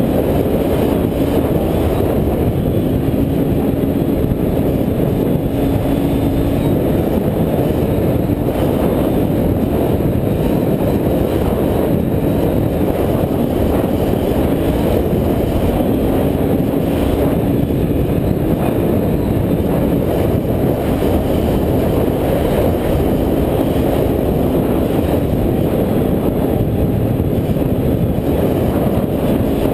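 Can-Am Renegade ATV's V-twin engine running at a steady cruise, its note wavering slightly with the throttle, mixed with wind rush and tyre noise on a dirt road.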